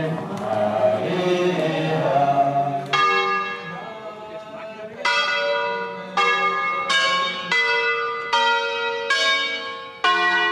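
Group of people singing a hymn that stops about three seconds in, followed by church bells ringing: several bells of different pitch struck one after another, about one strike a second, each note ringing on.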